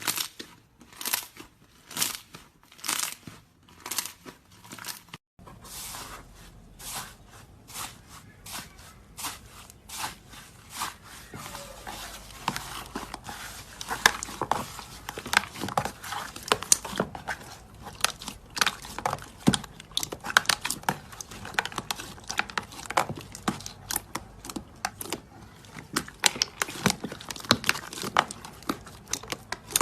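Slime being squeezed and poked by hand, making sticky clicks and pops. The pops come evenly at about two a second at first, then after a brief break turn into a dense crackle of many small pops.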